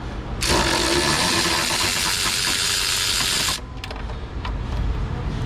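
Ratchet wrench on an extension and wobble socket clicking rapidly for about three seconds while working a spark plug, then stopping.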